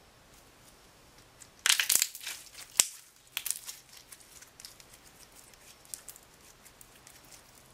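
Hands squishing and stretching clear glitter slime, making crackling, popping clicks as trapped air bursts. The loudest crackles come in a burst about two seconds in and a sharp pop just before three seconds, followed by another short run of pops and then scattered small clicks.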